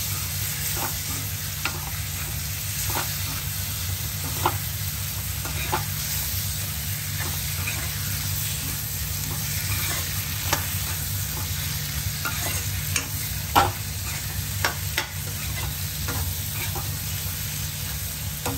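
Chicken and potato pieces sizzling in a pan of onion-tomato masala while being stirred, with short scrapes and knocks of the spoon against the pan every second or so.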